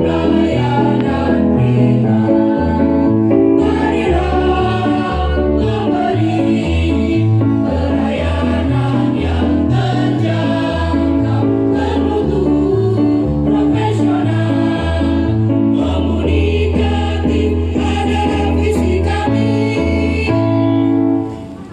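Choir singing a song with instrumental accompaniment, a bass line moving under the voices. The song ends on a held chord, and the sound falls away just before the end.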